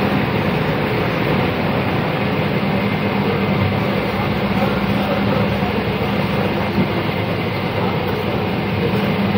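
Fuel dispenser pumping petrol through the nozzle into a car's tank: a steady rushing of fuel flow with a low motor hum underneath.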